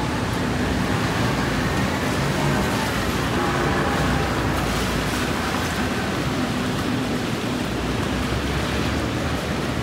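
Steady city road traffic noise: a continuous hiss of passing vehicles with a low engine hum underneath.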